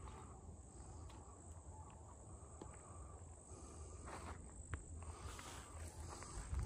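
Faint outdoor ambience: a steady high-pitched insect trill over a low rumble, with a few light clicks, the clearest about four and a half seconds in.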